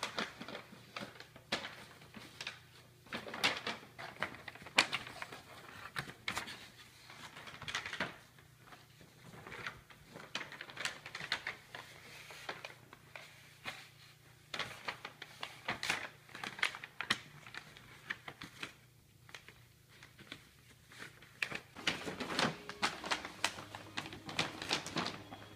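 Brown paper bag crinkling and crackling in irregular flurries as a puppy bites, shoves and burrows into it, with short quieter gaps between bouts.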